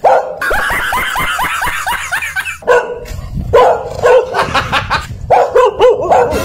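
Dog barking and yapping: a fast run of short high yelps, about five a second, then more barks after brief pauses.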